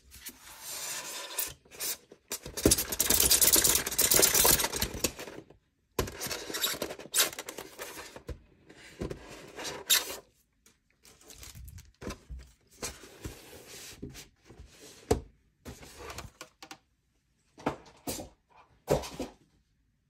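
Clear plastic wrap crinkling and a styrofoam packing insert rubbing and scraping as they are handled, in irregular bursts, the longest and loudest a few seconds in.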